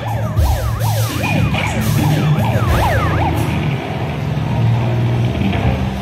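Fast yelping siren sweeping up and down in pitch about three times a second, stopping about three seconds in, over a low steady hum.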